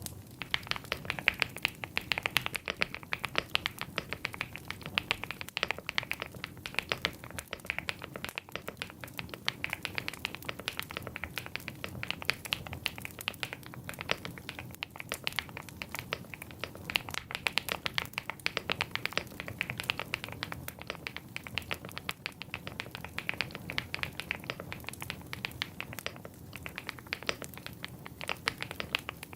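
Epomaker Galaxy100 mechanical keyboard being typed on steadily: a fast, continuous stream of key clacks of the kind called "creamy".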